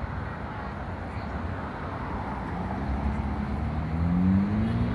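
A silver SUV drives past close by, its engine note rising as it speeds up, over a steady low rumble of road traffic.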